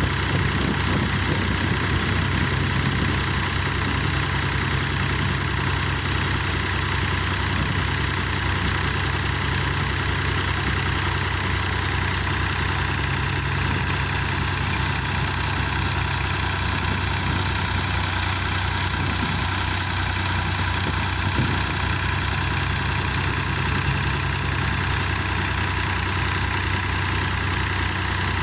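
Massey Ferguson tractor engine running steadily, powering a multicrop thresher through its power take-off while coriander is fed in; the engine and thresher make one even, unbroken drone.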